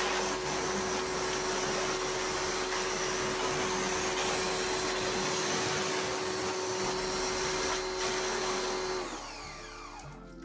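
Electric high-pressure washer running steadily, its motor and pump humming under the hiss of water spraying through the roof-cleaner lance. Near the end it shuts off, its pitch falling as the motor winds down.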